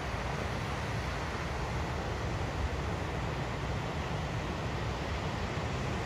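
Steady wash of ocean surf breaking along the shore, with a low, fluttering rumble of wind on the microphone underneath.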